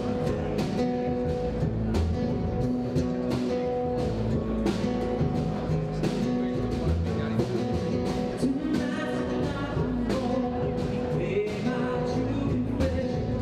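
A live rock band playing an upbeat number: guitar over a steady drum beat, with a voice singing in the second half.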